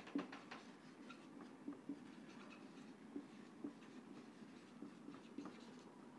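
Felt-tip marker writing on a whiteboard: faint, short, irregular scratches and squeaks as the letters are drawn.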